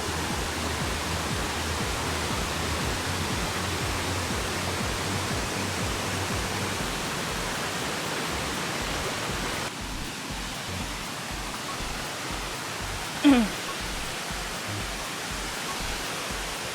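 Waterfall in spate rushing steadily, a dense even roar of falling water that drops somewhat in level about ten seconds in. About thirteen seconds in, one short loud call slides quickly down in pitch over the water noise.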